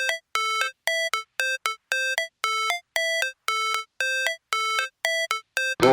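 Background music: a synthesizer melody of short beeping notes with gaps between them, about two to three a second. Just before the end a full, louder track with bass comes in.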